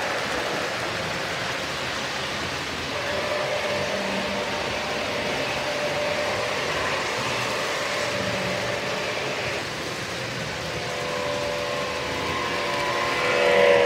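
O-gauge model trains running on the layout track: a steady whir and rumble of motors and wheels on the rails. Near the end, a model diesel's sound-system horn starts to blow as it comes closer.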